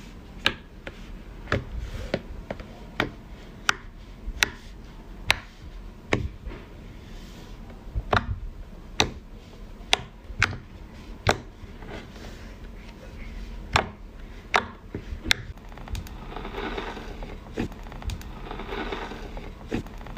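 Slime being poked and pressed, giving sharp clicking pops about once a second, then a softer crackling squish in the last few seconds.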